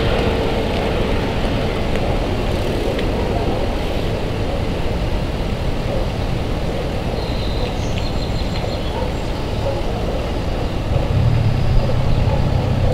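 Departing medical helicopter's rotor and engine noise overhead, a steady dense whir with a fine flutter. About eleven seconds in, a low engine hum grows louder.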